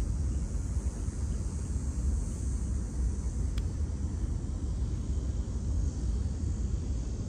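Wind buffeting the microphone outdoors, a steady low rumble, with one faint click about three and a half seconds in.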